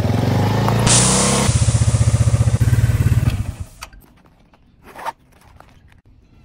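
Motorcycle engine running close by with a steady firing pulse, joined by a loud hiss about a second in, then fading out after about three and a half seconds. A brief rustle follows near the end.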